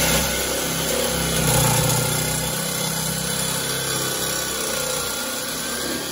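Corded jigsaw running steadily, its blade cutting through the aluminium wall of a nitrous oxide bottle.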